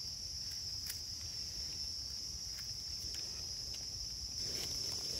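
Steady high-pitched insect chorus in forest, with a few faint ticks and soft rustling of leaf litter near the end.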